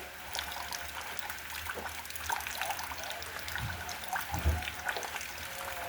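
Rain falling, with a steady hiss, many separate drops ticking and water trickling. A soft low thump sounds about four and a half seconds in.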